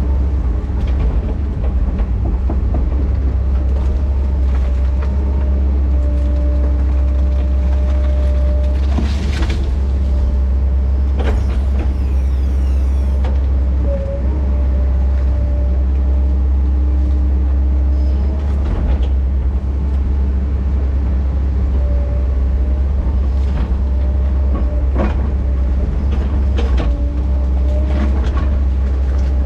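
Diesel engine of a heavy earthmoving machine running steadily under load, with a deep drone, hydraulic whine that comes and goes, and scattered clanks.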